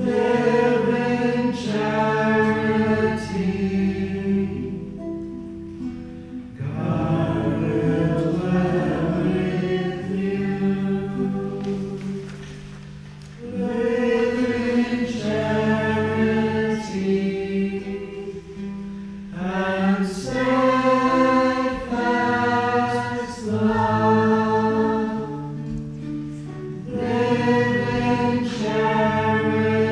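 Congregation singing a Taizé chant in several parts, a short sung phrase repeating about every six to seven seconds, with a guitar accompanying.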